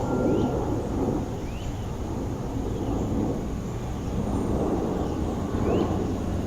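Steady low rumble of city traffic, swelling and easing every few seconds as cars pass, with a few faint short high chirps over it.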